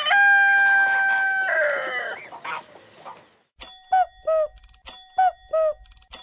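A rooster crowing: one long call that slides down in pitch at the end. About three and a half seconds in, a small bell starts dinging in quick, evenly repeated strokes, about three a second.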